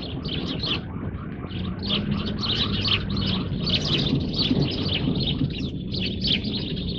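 Small birds chirping, a steady run of short high chirps several times a second, over a faint low hum.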